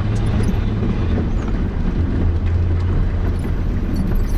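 Nissan Patrol Y60 engine running steadily as the 4x4 drives off-road, a low continuous drone, with a few light clicks or knocks near the start and near the end.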